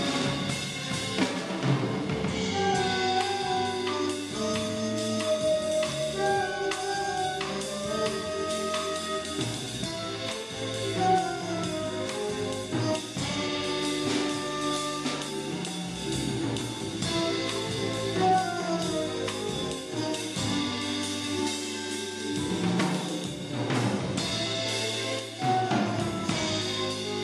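Live jazz sextet playing: trombone and trumpet horn lines over upright bass and a drum kit with busy cymbals, with flute and vibraphone in the ensemble.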